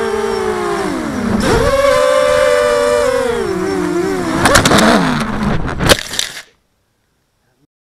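A DRQ250 mini quadcopter's brushless motors and propellers whining, the pitch dipping, climbing and falling again with the throttle. About four and a half seconds in, a run of sharp cracks as the quad crashes into tree branches, and the sound cuts off suddenly about a second later.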